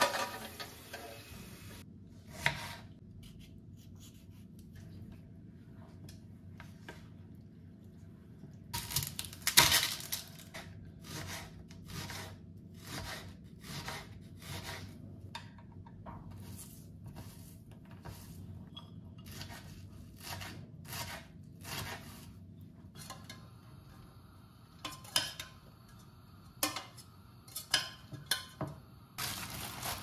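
Kitchen food-prep sounds: light knocks and clicks of utensils, a shaker and dishes on a wooden cutting board, coming in a fairly steady run of one or two a second through the middle, over a low steady hum.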